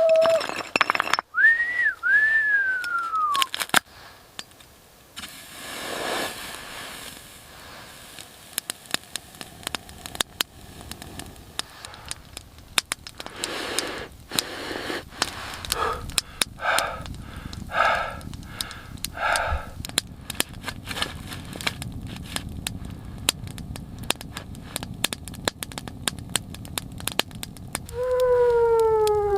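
A puppy whimpering in high, thin whines: a couple at the start and one long falling whine near the end. Scattered crackling runs throughout, and around the middle comes a short run of four noisy bursts.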